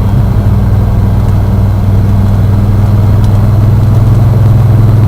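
1991 Ford F-150's 302 V8 idling steadily, warmed up, its low engine note growing slightly stronger partway through.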